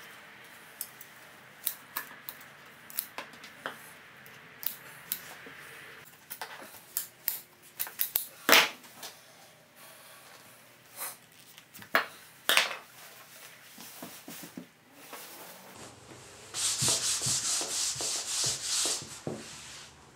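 Hands working upholstery fabric on a dashboard crash pad on a bench: scattered sharp clicks and short rubbing, scraping strokes. Near the end come about three seconds of loud rustling as a large white sheet is bunched up.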